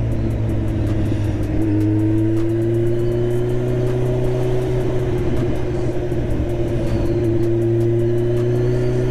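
Kawasaki Z1000's inline-four engine running through an aftermarket SC Project exhaust while the bike is ridden at a fairly steady speed. The engine note lifts slightly about two seconds in, then holds nearly level.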